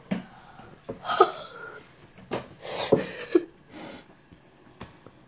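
A girl's excited breathy giggles and gasps, several short bursts of breath, with a few sharp clicks in between.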